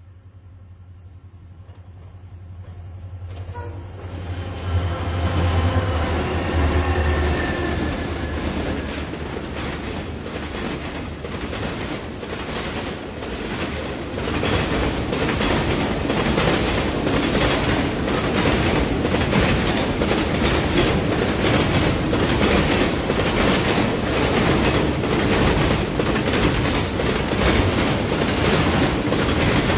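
Diesel train drawing near: a low engine drone swells over the first few seconds, then gives way to a loud, steady rush of running wheels with an even clickety-clack over the rail joints.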